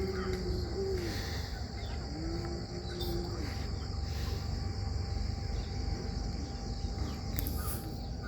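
Crickets chirring steadily, with two long, drawn-out calls in the first few seconds.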